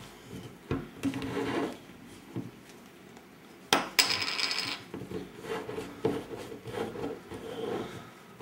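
Rustling and handling of a paper napkin around a glass beer bottle, with one sharp, louder burst of hissy rustle about four seconds in.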